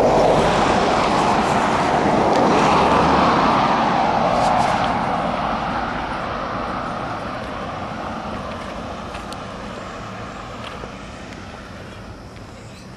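A car passing on the road, its tyre and engine noise loud at first and then fading steadily away.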